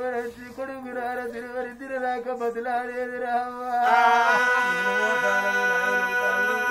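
Men singing an Oggu Katha, a Telangana folk ballad, in a chanted melodic line; about four seconds in it swells into a louder long held note.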